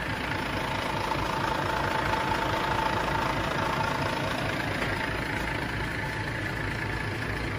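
Tractor-trailer truck's diesel engine idling: a steady low rumble with a thin whine above it.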